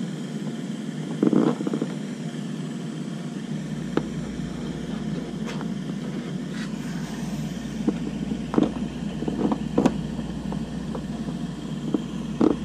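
Handling knocks and clicks as a white plastic through-hull outlet fitting is pressed and twisted into a plastic boat hull by hand: a short clatter about a second in, then single sharp knocks every second or two, over a steady low hum.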